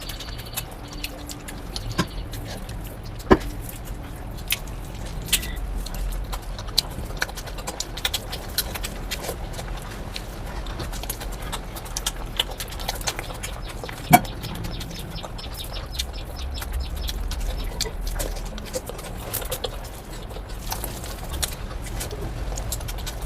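Close-up eating sounds of a spicy biryani mukbang: chewing and mouth noises, with many small scattered clicks and smacks and two sharper knocks about 3 and 14 seconds in, over a low background rumble.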